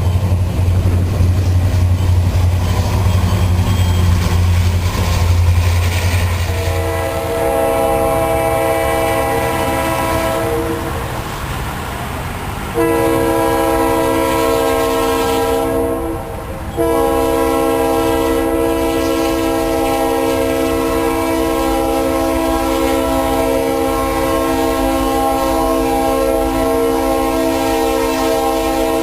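Diesel locomotive's multi-chime air horn sounding a chord of several notes in long blasts. It starts about seven seconds in, after a deep rumble from the train, gets louder about halfway through, breaks briefly, then holds to the end over the noise of the passing train.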